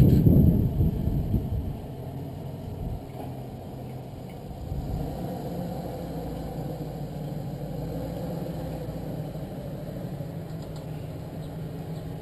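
Ford pickup truck's engine running at low speed as the truck reverses slowly while towing a car trailer. It is louder in the first second or so, then settles to a steady low run.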